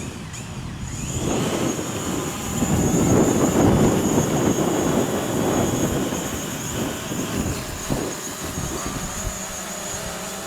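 DJI Mavic Pro quadcopter's motors spinning up with a rising whine about a second in, then its propellers whining steadily as it hovers. Strong wind buffets the microphone throughout and is loudest in the middle.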